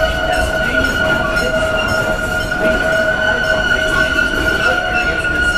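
Amusement-park train running along its track, its wheels squealing steadily on a curve over the low rumble of the rolling cars.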